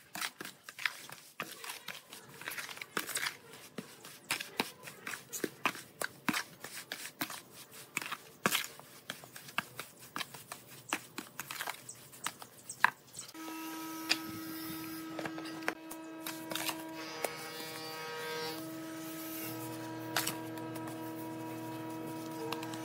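A trowel scraping and slapping through wet cement mortar in a plastic basin as it is mixed: a quick, uneven run of scrapes and clicks. About thirteen seconds in this gives way to a steady hum, with a few faint scrapes over it.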